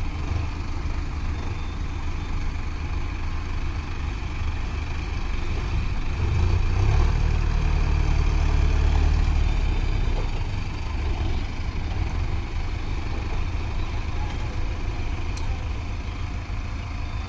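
Mahindra tractor diesel engines running steadily, one growing louder for about four seconds from about six seconds in, then easing back.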